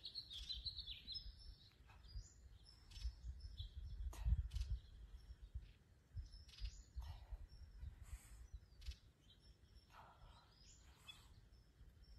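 Small birds chirping in short bursts over a low, uneven rumble that swells about four seconds in, with a few faint clicks.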